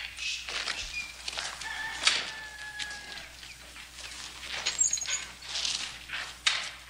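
Outdoor ambience of a team of horses hitched to a wagon: irregular scuffs, rustles and snorts, with a few short thin bird calls in the first few seconds.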